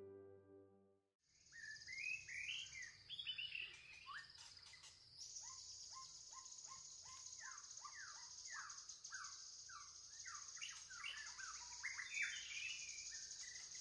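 A plucked musical phrase fades out in the first second. Then a forest ambience comes in: many birds chirping in quick, downward-sweeping notes over a steady high drone.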